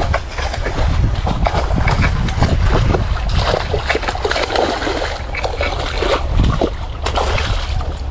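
Wind buffeting the microphone in a heavy low rumble, with irregular splashing and sloshing from a hooked fish fighting at the surface of the pond.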